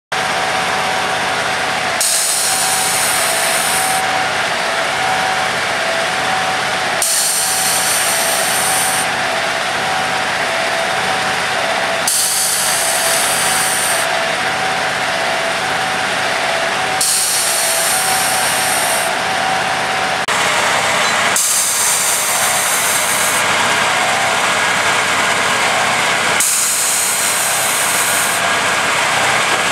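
Track tamping machine's engine and hydraulics running hard as it jacks itself off a lorry on its outrigger legs: a steady mechanical din with a whining tone, and a loud hiss about every five seconds, each lasting a couple of seconds.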